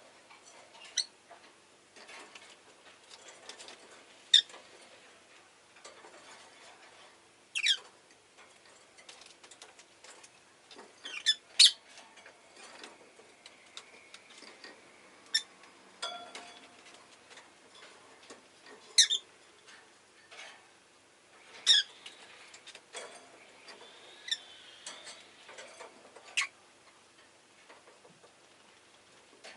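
Rosy-faced lovebirds giving single sharp, high chirps every few seconds, about ten in all, over faint small clicks and rustling.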